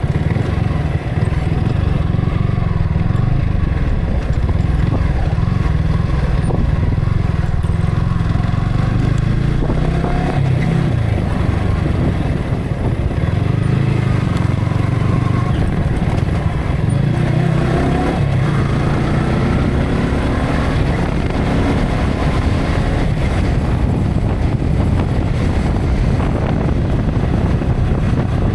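Yamaha R15 V3's 155 cc single-cylinder engine running while the bike is ridden, through an action camera's built-in microphone with heavy wind noise. The engine note rises and falls a few times around the middle.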